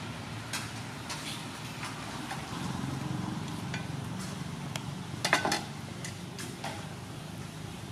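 Soup boiling in an open aluminium pot: a low steady rumble with scattered sharp metal clinks from the pot, the loudest a quick cluster about five seconds in.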